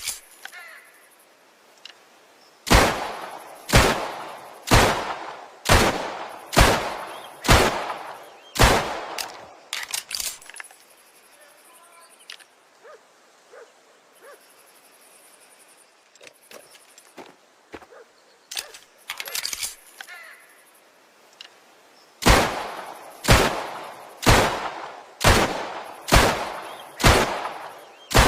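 M1911 pistol firing single shots at a steady pace of about one a second: a string of about eight, a pause of roughly twelve seconds with only faint clicks, then another string of about seven.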